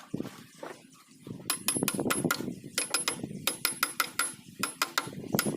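Repeated sharp metal-on-metal taps and clinks, several a second, from hand work on a power tiller gearbox. The taps start about a second and a half in, after a few softer knocks.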